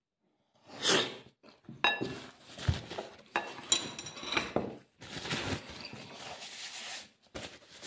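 Eating sounds and a few short metallic clinks of a knife against a dish, then a paper napkin rustling against the face from about five seconds in.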